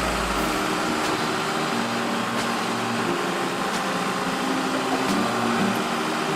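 Backhoe loader's four-cylinder turbocharged diesel engine running steadily, its hum shifting a little in pitch now and then, with a few faint ticks.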